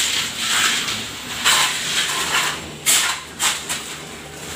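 Shovel blades scraping through wet sand-and-cement mortar on a concrete floor, in a series of irregular scraping strokes.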